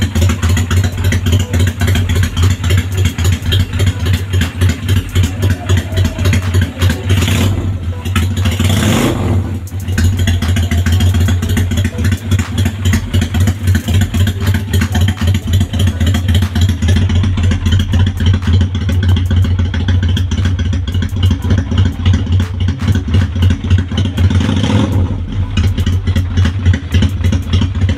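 Suzuki Steed 400's V-twin engine running at idle with an even throb, with a few short louder blips of the throttle about seven and nine seconds in and again near the end.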